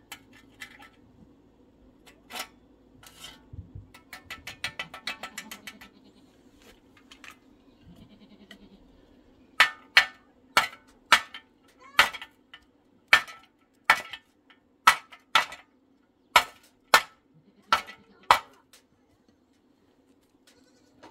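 Hammer striking a steel shovel blade: about fourteen sharp, ringing metal blows at an uneven pace over some nine seconds, starting about halfway through. Earlier, a goat bleats briefly.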